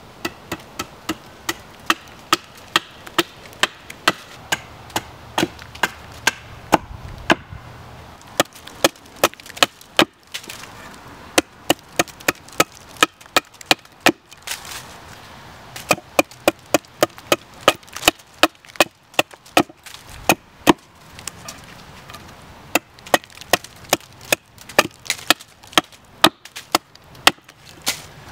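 Small axe chopping a point onto the end of a wooden stake stood on a stump: a quick run of sharp wooden chops, about two or three a second, with a few short pauses.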